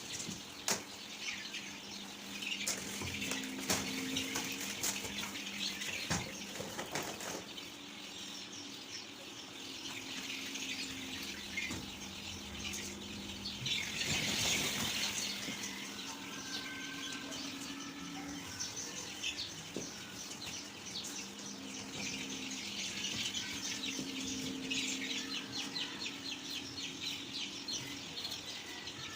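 A flock of young chicks peeping constantly in many overlapping high chirps. There are a few sharp knocks in the first several seconds and a louder rustling surge about halfway through, as the brooder is opened.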